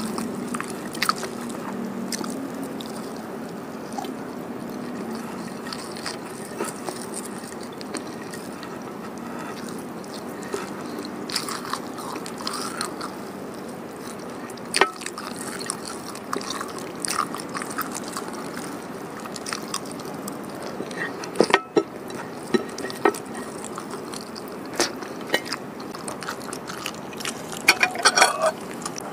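Close-miked chewing and wet mouth clicks of someone eating pecel sayur (boiled vegetables and fried tofu in peanut sauce) by hand, with scattered soft smacks throughout over a steady low room hum.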